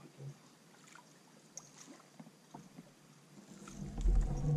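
Small knocks and light water sounds around a fishing kayak, then a loud low rumble that builds near the end.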